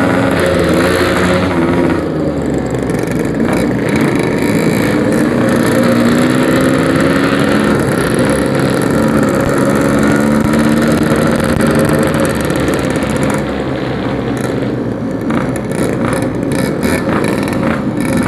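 Yamaha RX-King two-stroke single-cylinder motorcycle with an aftermarket 'packing power' exhaust, under way. The engine note rises and falls several times as it accelerates and eases off.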